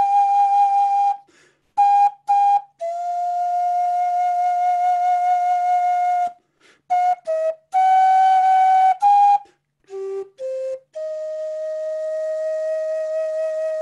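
Solo wooden end-blown flute improvising a slow melody: long held notes with a slight waver, broken by short notes and brief silent gaps, with a breathy edge to the tone. About ten seconds in it dips to a couple of low notes, then settles on one long held note.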